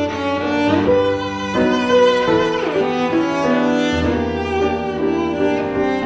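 Background music of bowed string instruments, cello and violin, playing sustained notes that change pitch every second or so.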